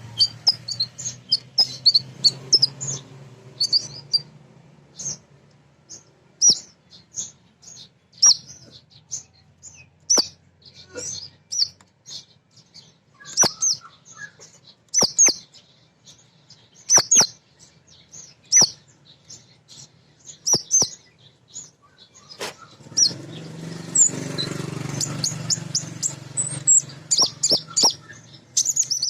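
Female kolibri ninja sunbird calling in rapid, high-pitched chirps, in clusters with short pauses and sharp clicks between them. A low rumble sits underneath at the start and again near the end.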